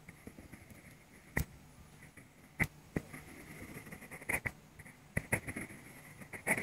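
Mechanical pencil scratching on paper in short drawing strokes, with several sharp clicks at uneven intervals.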